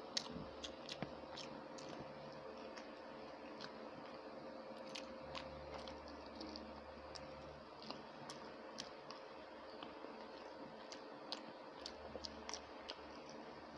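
Close-up eating sounds of a person chewing a mouthful of rice and curry eaten by hand. Many small, irregular wet clicks and squishes from the mouth and fingers.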